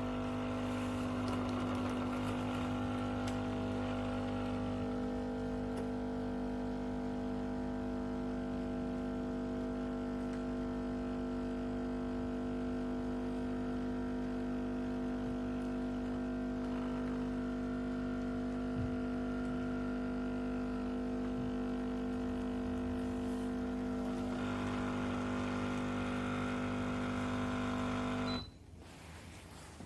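Espresso machine pump humming steadily while pulling a shot, then switching off suddenly near the end.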